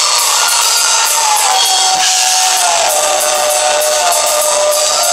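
Electric bass played with a Black & Decker power drill spinning against the strings: one sustained tone that slides slowly down in pitch and back up, over a drum kit.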